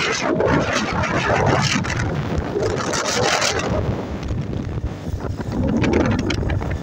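Wind buffeting the microphone of a phone carried on a moving motorcycle, over the low rumble of the bike running and its tyres on the wet road. The rushing is loudest in the first three seconds or so, then eases.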